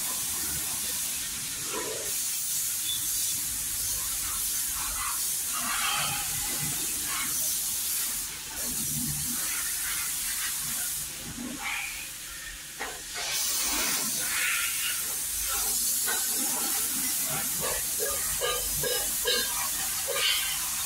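A pressurised spray hissing steadily while a motorcycle is cleaned, cutting out briefly about 8 seconds in and again for a couple of seconds around the middle.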